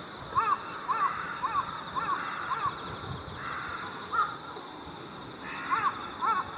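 Crows of a mixed jungle crow and carrion crow flock cawing to one another at a preroost gathering. The short caws come in quick runs of about two a second, with a lull in the middle.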